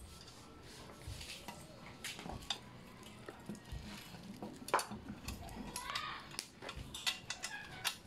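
Light metallic clicks and clinks of small bolts, nuts and a hex key being handled and turned on an aluminium bike rack while its bolts are tightened, with one sharper click about halfway through.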